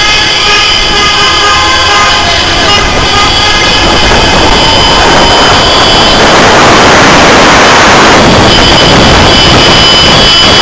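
Many car and scooter horns honking at once, several tones overlapping, in celebration. The horns give way to a dense wash of street and traffic noise in the middle and come back near the end.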